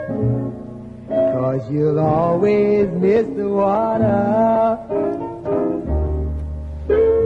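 Background music: a song whose melody line slides between notes over a steady low bass.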